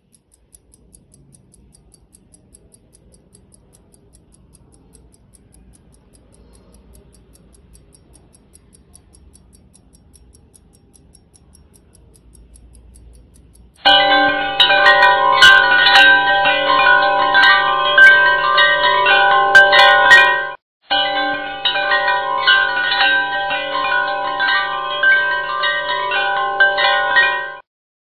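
An antique pocket watch ticking faintly and rapidly. About halfway through, a wall clock's chime starts ringing loudly, many bell-like notes ringing together, with a brief break about two-thirds of the way in, before it stops just before the end.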